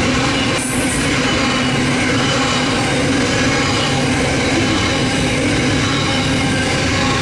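Double-stacked container wagons of a long intermodal freight train rolling past, a steady rumble of steel wheels on rail with metallic ringing over it. A brief high hiss comes just under a second in.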